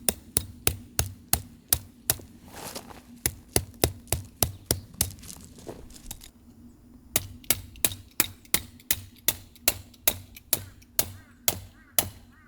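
Hammer driving tent pegs into the ground: quick, regular strikes about three a second, with a pause of about a second partway through.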